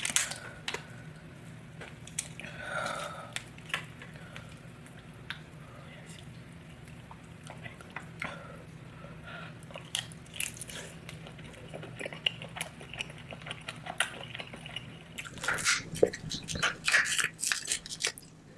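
Close-miked eating of lobster tail in butter sauce: wet chewing and biting with scattered sharp mouth clicks, getting busier near the end.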